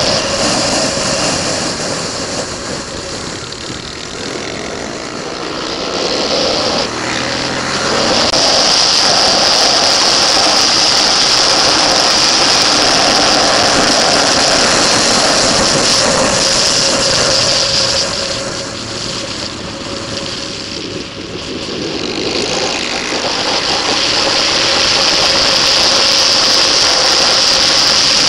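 Motorcycle engine running hard at speed, heard from a camera on the bike with heavy wind rush over it. Twice the engine eases off for a few seconds and the sound drops, then it pulls hard again.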